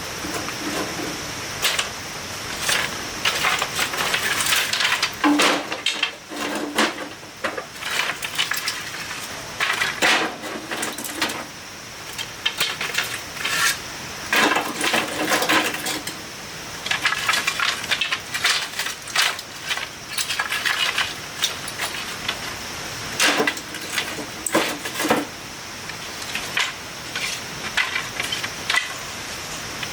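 Irregular clinks, clicks and knocks of hard objects being handled, coming in bouts with short pauses between them, over a steady high-pitched hiss.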